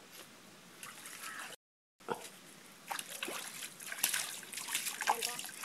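Water splashing and sloshing as hands scoop and throw muddy water out of a shallow ditch. It is faint at first; after a brief dead silence about a second and a half in, the splashing starts up and grows busier.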